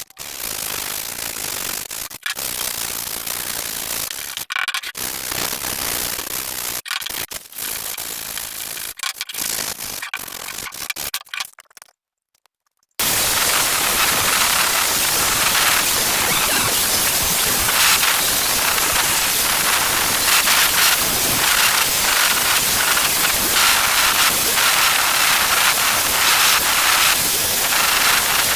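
Steady abrasive rasping of rust being scrubbed off an old metal sickle, with short breaks in the first half, a pause about twelve seconds in, then louder, denser rasping.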